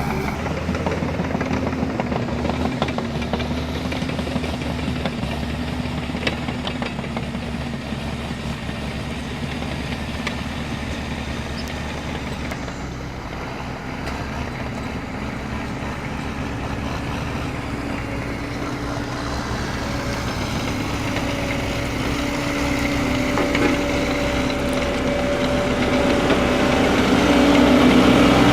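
A heavy vehicle's engine running steadily, growing louder over the last several seconds.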